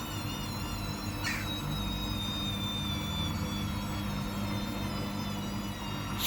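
Hoover washing machine spinning its drum in an interim spin during a cotton 90 wash: a steady motor hum under a high, slightly wavering whine, with a click right at the end.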